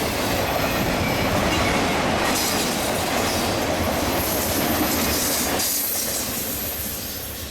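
Freight train cars rolling past, wheels rumbling and clattering over the rails with a faint high squeal. The noise eases off somewhat near the end.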